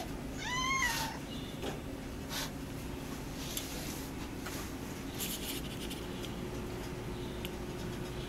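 A cat meows once, a short call that rises and then falls in pitch, followed by a few light scuffs and clicks over a steady low hum.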